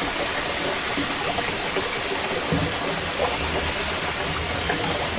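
Water running hard from a sink tap, a steady rush with some splashing, shut off abruptly at the very end.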